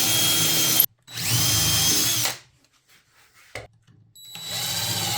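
Drill/driver running in three bursts as it drives screws into wood: a run that stops just under a second in, a second that spins up and runs about a second, and a third that starts after a pause of nearly two seconds with a single click in the gap.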